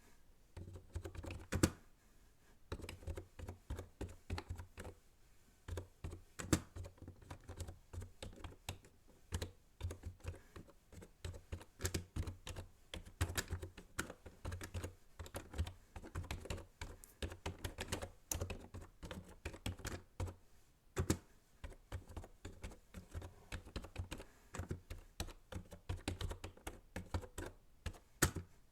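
Typing on a computer keyboard: rapid runs of key clicks with short pauses between them.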